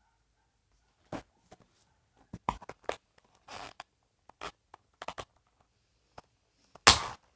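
Irregular rustling, scraping and clicking of cardboard and plastic toy packaging being handled and cut open to free a doll, with the loudest crackle about seven seconds in.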